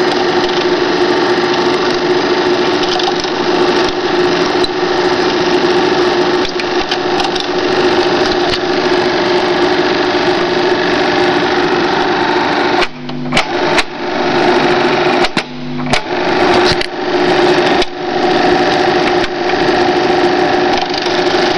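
Silma Alfa 07 Super 8 film projector running, its motor and film transport giving a steady mechanical whirr with a steady hum as it feeds film through to the take-up reel. The running noise drops out briefly twice, around 13 and 15 seconds in, leaving a lower hum.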